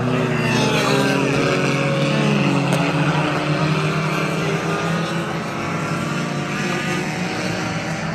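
Several hobby stock race cars' engines running together as the field passes through the turn, their pitches rising and falling as the cars lift and get back on the throttle.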